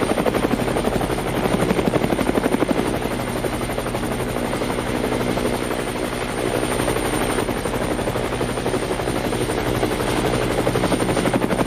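Light helicopter lifting off and flying away, its rotor blades beating rapidly and steadily; the beat eases a little around the middle and grows stronger again near the end.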